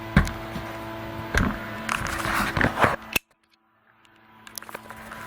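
Knocks and clatter of hands handling a window air conditioner's metal and plastic parts during disassembly, with a heavy thump just after the start and a run of rattling about two to three seconds in. The sound cuts out suddenly about three seconds in, and a quieter background with a few light clicks returns.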